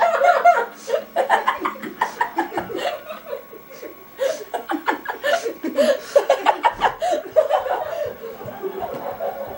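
Teenage boys laughing in several bouts of quick, pulsing laughter.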